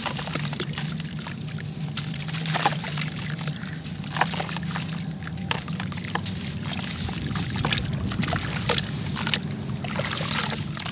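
Hands squeezing and crumbling soaked sand-cement chunks in a tub of water, with irregular sloshing and splashing, a few louder splashes among them. The chunks are rain-soaked, so they break up wet and soft instead of crunching, over a steady low hum.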